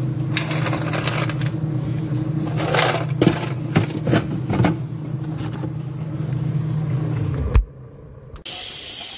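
Steady low hum of an open refrigerator while a plastic ice tray is handled, with a few short scrapes and knocks. The fridge door shuts with a thud, the hum cuts off, and nearly a second later a steady sizzle of oil frying in a pan begins.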